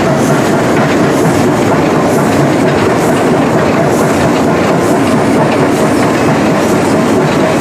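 Running noise inside the cab of a class 19D 4-8-2 steam locomotive on the move: a steady, loud din with no let-up.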